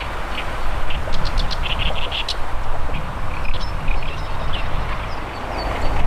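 Zitting cisticola calling: a quick run of short 'jat jat jat' notes about a second in, then a few scattered notes, over a steady low rumble.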